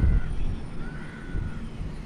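A crow cawing: a drawn-out, arching call about a second in, over a low rumble that is loudest at the start and fades within the first half second.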